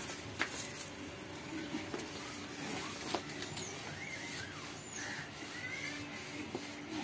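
Quiet outdoor yard ambience with a few short, high chirps in the middle and near the end, and a couple of light knocks.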